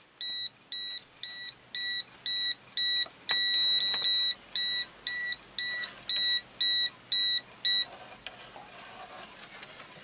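FNIRSI TP10 non-contact voltage tester beeping about two and a half times a second as it picks up a live wire hidden under the plaster. The beeps run together into one unbroken tone for about a second near the middle, then stop about eight seconds in as the tester leaves the wire.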